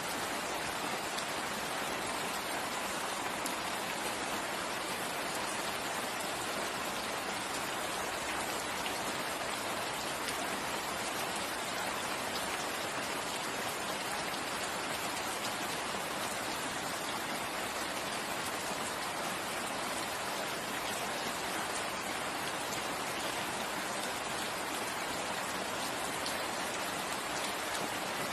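Steady rain falling, an even hiss of drops with faint scattered patters and no change in strength.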